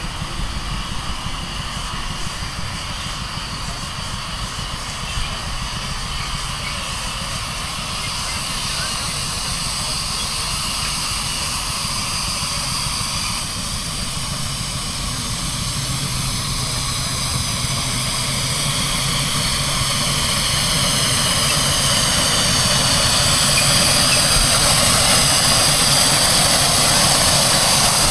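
Miniature 7¼ in gauge steam locomotive running close by, a steady rushing hiss of steam that grows louder over the second half.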